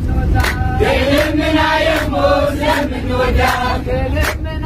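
A group of men and women chanting an Eritrean Orthodox Tewahdo hymn (mezmur) together, with sharp hand claps keeping the beat roughly once a second, over the low rumble of the bus engine.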